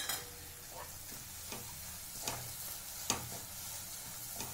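A spatula stirs and scrapes a thick mixture of grated carrot, ghee and sugar in a nonstick pan, one stroke about every three-quarters of a second, over a faint sizzle. The mixture is thickening as the sugar syrup cooks down.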